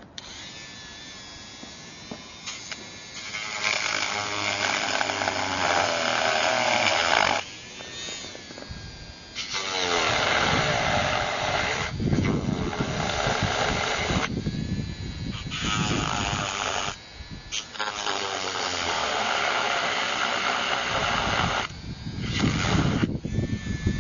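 Dremel rotary tool grinding into the edge of a plastic trim cover, its motor whining over the grinding noise. It runs in several bursts of a few seconds each, with short pauses between.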